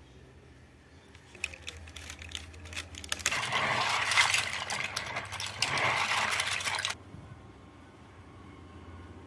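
Plastic mechanical-keyboard parts clicking and clattering: scattered clicks, then a dense rattle for about four seconds that stops abruptly.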